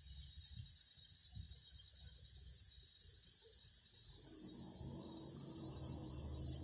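Cicadas singing: a dense, steady, high-pitched buzzing chorus that cuts off abruptly at the end. A faint low hum joins it about four seconds in.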